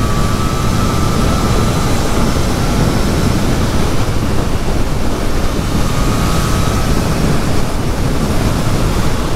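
Steady rush of wind over the microphone while riding a Triumph Trident 660 three-cylinder motorcycle at road speed, with the bike running underneath. A faint high whine comes in at the start and again briefly later.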